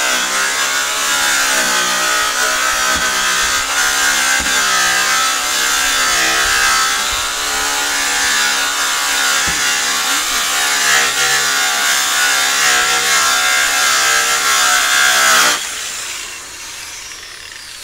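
Hand-held rotary polisher running with a buffing pad against aluminium trailer sheeting, its motor pitch wavering as it is worked over the metal. It cuts off sharply near the end.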